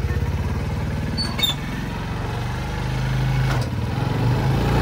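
A small engine running steadily with an even firing beat, slightly louder near the end. A brief high chirp comes about one and a half seconds in.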